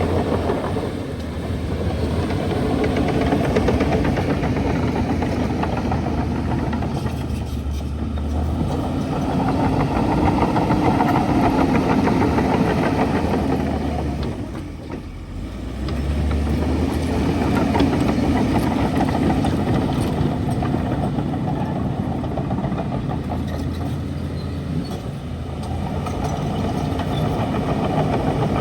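Bulldozer's diesel engine running under load, its level rising and falling; it eases off briefly about halfway through, then comes back up.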